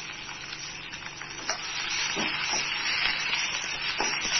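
Onions, ginger and dried red chillies sizzling in hot oil in a kadai, stirred with a spatula that scrapes and knocks against the pan a few times. The sizzle grows louder about two seconds in.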